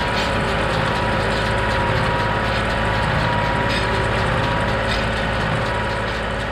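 Tractor engine running steadily while pulling a New Holland 69 small square baler, the baler's pickup and plunger working as it takes in a windrow of hay.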